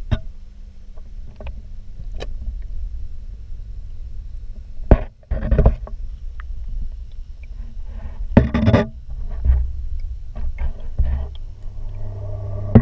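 Handling noise from a GoPro in its waterproof housing moved underwater in an aquarium: a muffled low rumble with a steady hum, broken by sharp knocks and rattles from the housing. The knocks are loudest about five seconds in and again around eight and a half seconds in.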